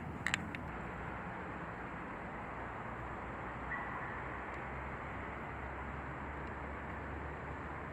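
Steady outdoor background noise, with two sharp clicks just after the start and a brief faint high tone about four seconds in.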